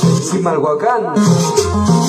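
Latin dance music played over a sound system, with a shaker rhythm and a repeating bass line, and an MC's voice calling out a place name over it about a second in.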